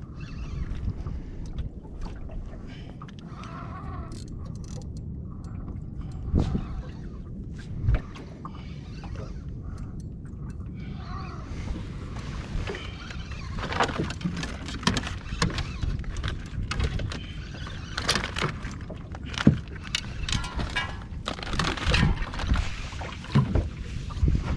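Wind and water around a small fishing boat at sea: a steady low rumble with scattered knocks and thumps against the hull and gear. About eleven seconds in, a brighter hiss of wind and splashing water joins, dotted with short clicks.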